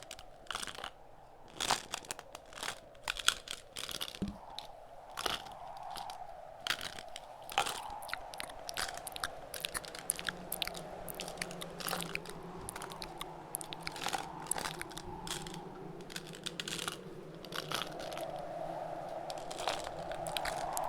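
Close-miked ASMR tapping and mouth sounds: many irregular sharp clicks and crackles over a steady wind sound that swells near the end.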